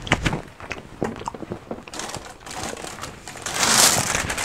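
Scattered crunches and clicks of eating crispy fried chicken, then a plastic bag rustling loudly about three and a half seconds in as a chicken bone is dropped into it.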